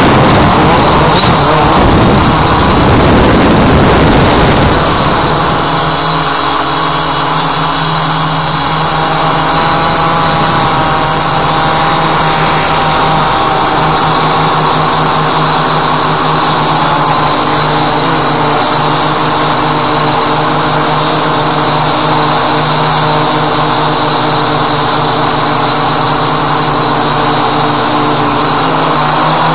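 Walkera Voyager 3 quadcopter's motors and propellers in flight, heard from its onboard camera: a loud mechanical buzz with a constant high whine. It is rougher and a little louder for the first five seconds or so, then settles into a steady hum whose pitches shift slightly with the throttle.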